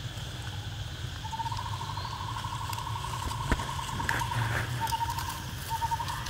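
Outdoor ambience: a steady low rumble under a rapid high trill of quick pulses, first one long run of about two seconds, then several short bursts. A single sharp tap comes about halfway through.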